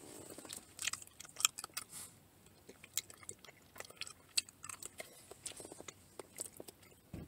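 A person chewing a mouthful of macaroni salad, with many irregular soft, wet clicks and smacks of the mouth.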